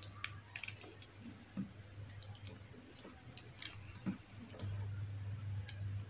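Faint small clicks and rattles of a button cell and the plastic battery housing of a Boya BY-M1 lavalier microphone being handled as the cell is fitted into its compartment. A low steady hum comes in about three-quarters of the way through.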